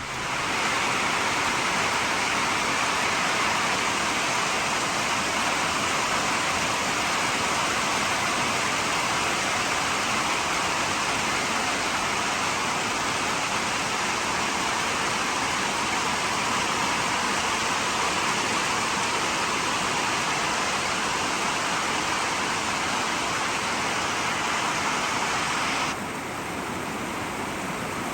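Heavy rain falling steadily: an even, unbroken hiss that drops in level near the end.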